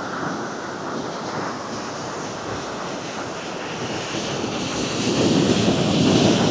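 Ocean waves washing in a steady rush. About five seconds in it swells into a louder, deeper surge.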